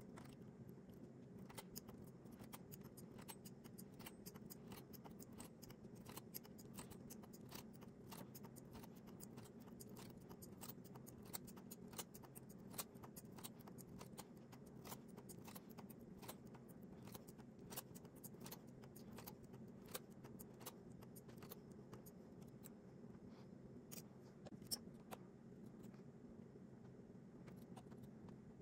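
Faint, irregular light metallic clicks of a latch tool and the needles of a Singer 328 knitting machine as stitches are bound off by hand, one needle at a time, over a low steady hum.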